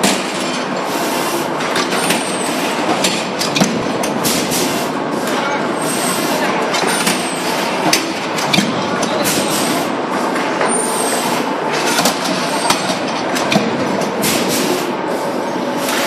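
A line of JH21 C-frame power presses stamping steel sheet parts, with ESTUN transfer arms carrying the parts between them: a loud, constant machinery din with frequent irregular metallic clacks and thumps, and a brief high chirp every few seconds.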